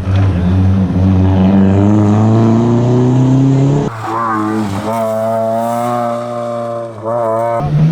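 Rally car engine accelerating hard, its pitch climbing steadily for about four seconds. Then an abrupt switch, about halfway through, to an engine held at high revs with a wavering pitch.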